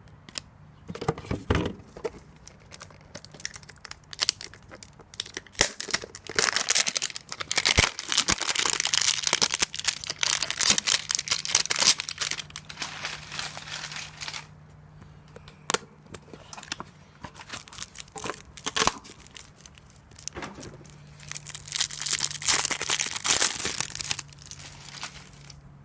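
Trading-card pack wrapper crinkling and tearing as a pack is opened, with long stretches of dense crinkling and scattered sharp clicks from handling.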